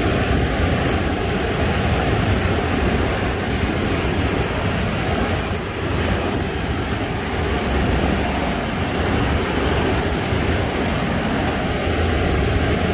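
Waterfall pouring over a rock ledge into a pool: a loud, steady rush of falling water.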